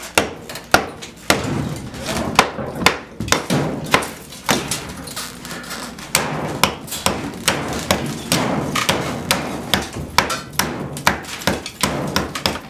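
Hammer striking a chisel again and again, chipping out a hole through a concrete block wall, about two blows a second.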